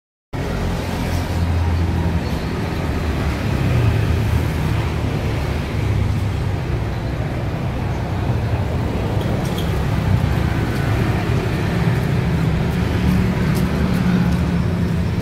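Steady low rumble of outdoor background noise with a few faint clicks.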